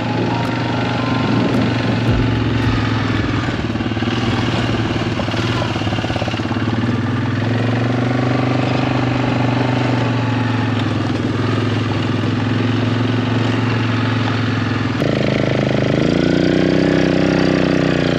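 Suzuki KingQuad ATV engine running steadily while riding over sand, its pitch shifting a little midway, then changing suddenly near the end with a dip and rise in engine speed.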